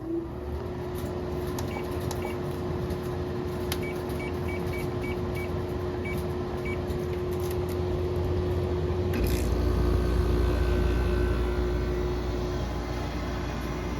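2004 Daewoo DWC-054R window air conditioner running on its fan with a steady hum. About nine seconds in, a click is followed by the compressor starting, which adds a deep, louder hum.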